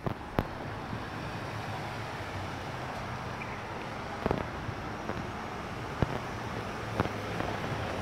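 Steady outdoor city background noise with a low hum of traffic, broken by a few sharp knocks or clicks.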